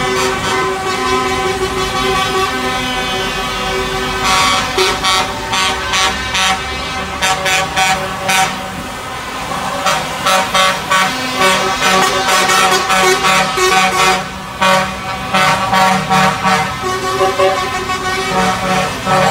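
Lorries in a convoy driving past, sounding their air horns: a held horn tone at first, then many short toots in quick succession from about four seconds in, over the running of the trucks' engines.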